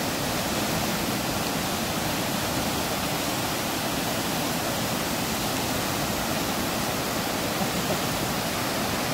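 Muddy river in flood rushing over rocks and a low waterfall: a steady, even rush of churning water that does not change.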